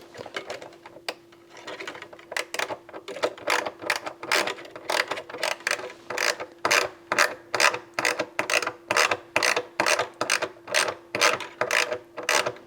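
Ratcheting screwdriver clicking evenly, about two or three clicks a second, as a screw is driven in and tightened.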